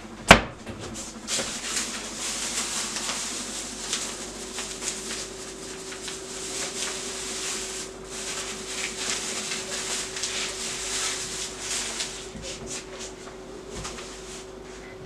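Plastic bag rustling and crinkling in irregular spells as it is handled, after a single sharp knock just after the start. A faint steady hum runs underneath from about five seconds in.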